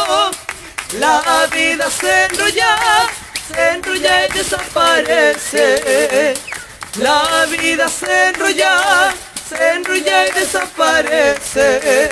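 A cueca being sung: a voice holding long, wavering notes in phrases, with little or no instrumental backing, and short sharp taps among the phrases.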